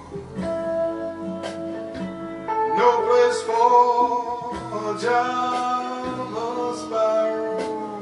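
Recorded music led by plucked guitar, played over DeVore Fidelity Gibbon Nine loudspeakers driven by a 2A3 tube amplifier and picked up in the room.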